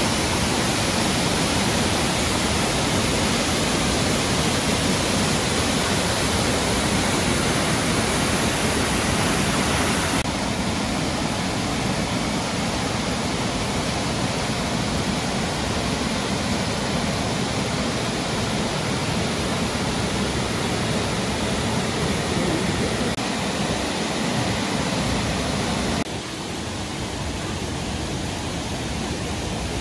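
Brandywine Falls, a 60-foot waterfall, rushing: a steady, even sound of falling water. It drops a little in level about ten seconds in and again near the end.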